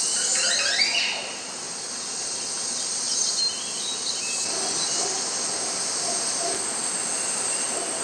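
Cloud-forest ambience: a dense, steady hiss of the forest, with a short run of quick bird chirps about a second in and a few faint calls later.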